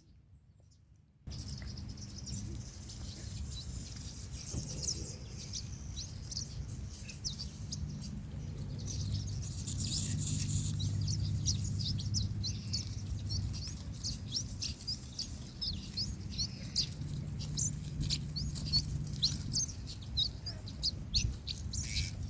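Wild birds chirping many times in quick succession, over a steady low rumble; the sound comes in about a second in.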